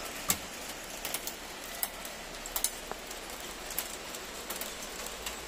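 Hail and rain falling on a tiled patio: a steady hiss of rain with scattered, irregular sharp clicks of hailstones striking, the loudest just after the start.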